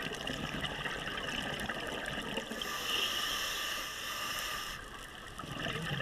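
Underwater ambience through a camera housing: a steady hiss with faint crackling, and a rush of scuba regulator exhaust bubbles from about two and a half seconds in to nearly five seconds, cutting off suddenly.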